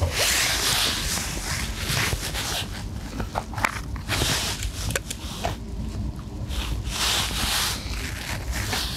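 Strong wind buffeting the microphone with a steady low rumble, mixed with rustling and scraping handling noises that come and go in surges and a few short ticks.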